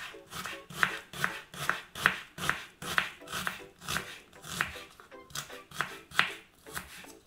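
Chef's knife finely chopping an onion on a wooden cutting board: a steady rhythm of sharp knocks, about two to three a second, each blade stroke hitting the wood.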